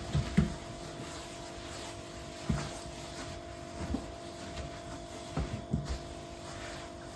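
Scattered light knocks and clunks of household objects being handled, about five over a few seconds, over a steady low hum.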